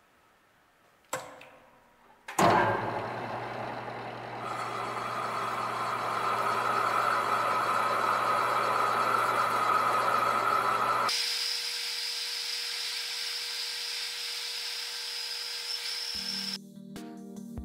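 Metal lathe (Wasino LR-55A) spindle starting up suddenly after a click, then running steadily as a grooving tool cuts a groove into the turning metal pin. About eleven seconds in, the sound turns to a thinner, higher whine as the footage is sped up, and music comes in near the end.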